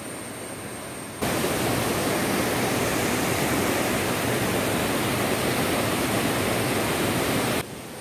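Steady rushing water of a small rocky waterfall where two streams meet. It is fainter for about the first second, then jumps abruptly louder and stays even until it drops back just before the end.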